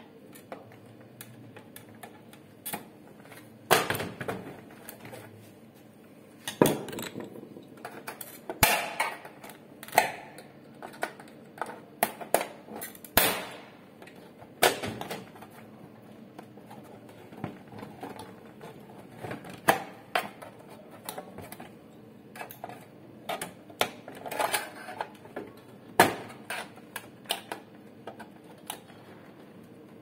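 Plastic casing parts of an HP LaserJet P1005 printer clicking and knocking as they are pried and unclipped with a screwdriver. The clicks come irregularly, with louder knocks every few seconds.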